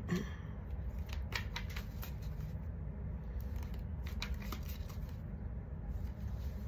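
A tarot deck being shuffled by hand: scattered card rustles and soft snaps in small clusters, over a steady low hum.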